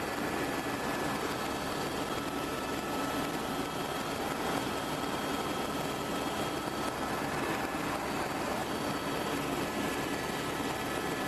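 Helicopter in flight heard from inside the cabin: a steady engine and rotor drone with a few faint steady whining tones over it.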